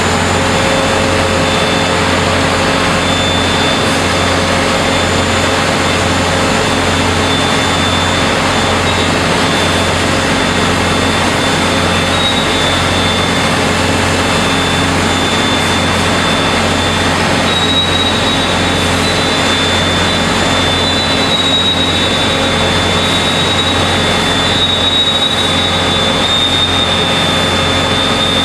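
Steady din of heavy factory machinery in a spring-making plant: a continuous dense noise with a low hum and a faint high-pitched whine, unchanging throughout.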